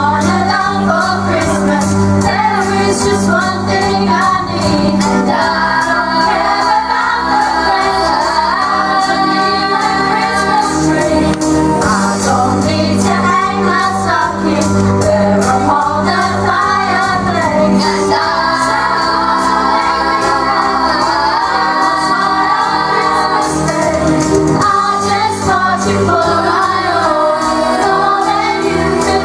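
A youth choir of children and teenagers singing to a keyboard accompaniment, the voices moving over long held low notes.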